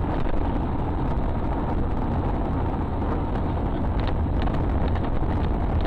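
Steady low rumble of a car driving, engine and road noise picked up by a dashboard camera inside the car, with a few faint clicks about four seconds in.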